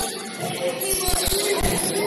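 Music with a jingling, tambourine-like high end, over irregular dull low thuds of a basketball bouncing on a gym floor.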